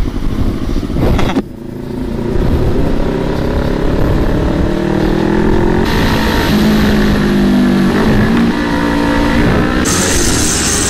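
Kawasaki Ninja 650's parallel-twin engine pulling hard at speed, its pitch climbing and stepping as it runs through the gears. A steady rush of wind noise lies over it.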